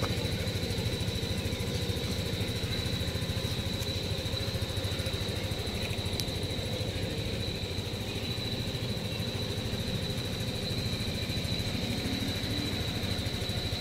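A steady low mechanical hum, like an engine or machine running without change, with a constant high-pitched tone over it.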